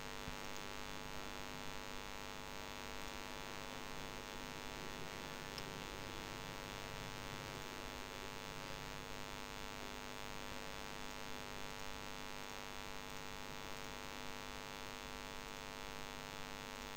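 Low, steady electrical mains hum: a buzz of many evenly spaced tones over a faint hiss, with no change through the stretch.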